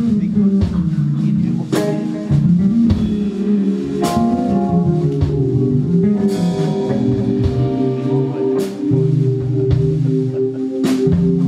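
Live band playing a slow instrumental ballad: a Jazz Bass-style electric bass played fingerstyle, with drums and several cymbal crashes under held notes.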